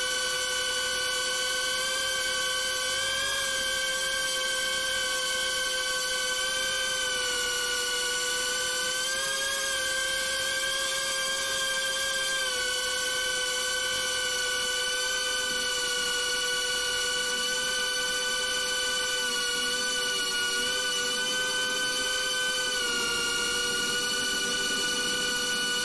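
BetaFPV Beta95X V3 cinewhoop drone in flight: its brushless motors and ducted 2.5-inch propellers make a steady high whine. The pitch rises and dips slightly a few times as the throttle changes.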